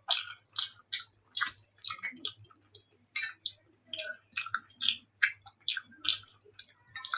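Close-miked wet chewing and smacking of soft cooked food, in short squishy bursts about two a second.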